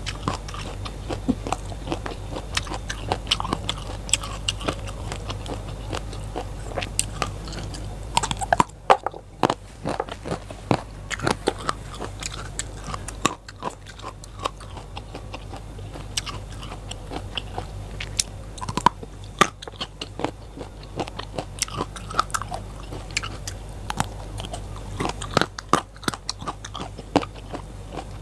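Close-up biting and chewing of crisp raw vegetables, a dense, irregular run of wet crunches.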